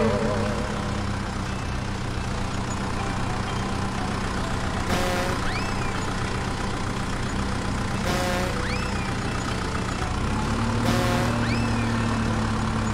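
Steady idling sound of a large truck engine. A short sound with a whistle that rises and falls repeats about every three seconds.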